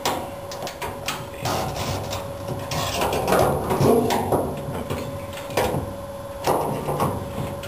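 Irregular metal clinks and knocks, about eight of them, as a fuel gauge sending unit's tubes and float arm are worked into the opening of a 1970 Chevelle gas tank and seated on its O-ring.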